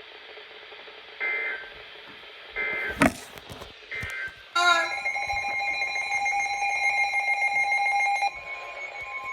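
Weather radio alert signal: three short, harsh digital data bursts about a second and a half apart, with a sharp click among them, each one a SAME header announcing a new alert. About four and a half seconds in, a loud steady alarm tone built of several pitches comes in. Near the end it drops to a quieter single steady tone.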